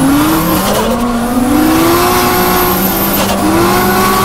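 Toyota JZX-series Tourer's 1JZ straight-six heard from inside the cabin while drifting, its revs climbing and dropping several times in a row, with tyres squealing.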